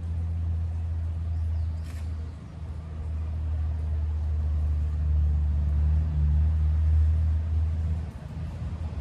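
An engine running with a steady low drone. The drone dips briefly about two and a half seconds in, swells, and then drops off near the end. A brief faint click comes about two seconds in.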